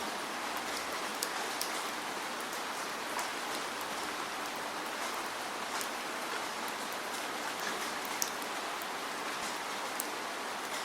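Steady rain falling, an even hiss with scattered sharp individual drops ticking on a surface.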